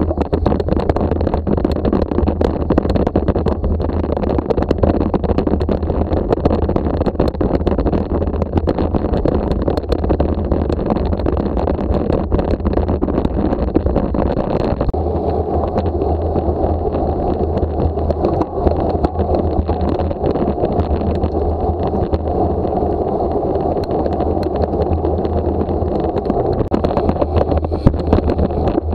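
Wind and road noise on a bicycle-mounted camera's microphone while riding: a steady low rush with rattling knocks as the wheels roll over cobblestones. About halfway through it cuts to a smoother, steadier rush on tarmac.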